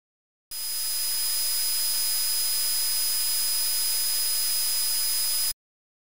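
Synthetic tinnitus-simulation sound: a steady electronic hiss, strongest in the highs, with a thin high steady whistle on top. It swells in about half a second in and cuts off abruptly about half a second before the end.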